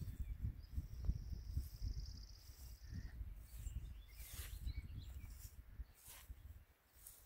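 Wind buffeting the microphone in uneven gusts, easing off near the end. A high, thin, rapid trill comes in the first half and lasts about two and a half seconds.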